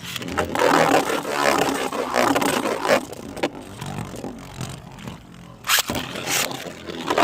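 Two Beyblade spinning tops, one of them 3D-printed, spinning and clashing in a plastic stadium, with repeated hard hits. It eases off briefly, and a sharp collision comes near the end.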